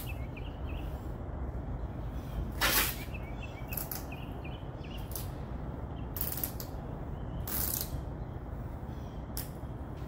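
Masking tape being pulled off its roll and laid down in several short rasping rips, about five, the first the loudest, over a steady low hum.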